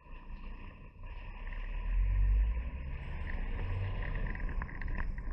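Lorry engine pulling away from a standstill, heard inside the cab: a low rumble that swells about two seconds in, then runs steadily as the vehicle drives off.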